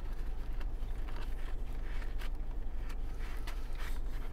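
Steady low rumble inside a parked car's cabin, with scattered small clicks and rustles from people eating.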